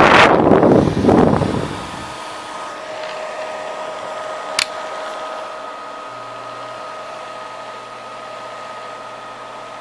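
Vintage Arno hair dryer running: a loud rush of air for about the first second and a half, then a steadier fan rush with a thin motor whine. A sharp click comes about four and a half seconds in, and another at the very end.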